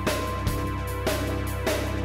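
Intro theme music with a steady beat and sustained bass notes.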